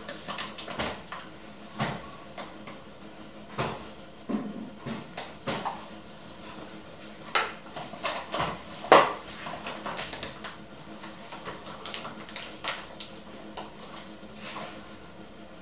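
Scattered clinks and knocks of kitchen utensils, a spoon, measuring cup and metal bowls against a countertop as baking ingredients are measured out. The sharpest knock comes about nine seconds in.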